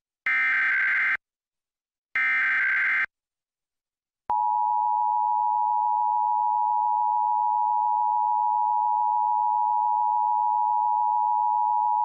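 Emergency Alert System broadcast: the last two SAME header data bursts, each about a second long, then after a short pause the steady EAS two-tone attention signal, which sounds for about eight seconds.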